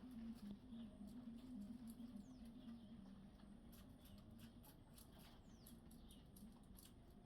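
Faint bird chirps, a few short notes falling in pitch, over a patter of light clicks and a low wavering hum.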